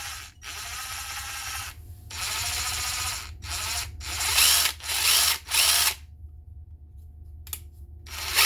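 A WerkTough brushed cordless impact wrench free-running in a series of short trigger pulls, then one more pull near the end after a pause. The motor and gearing run rough and rattly, like a bag of bolts rocking, which the owner puts down to the gear in the nose cone.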